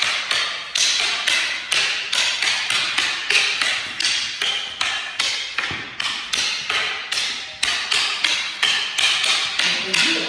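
Eskrima sticks clacking against each other in a fast, steady rhythm of about four strikes a second, as two partners trade blows in a double-stick drill.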